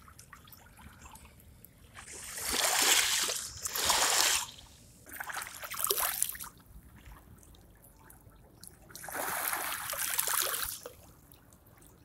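Small waves of a calm sea washing up over pebbles at the water's edge: four surges of rushing water that swell and fade, with quieter stretches between.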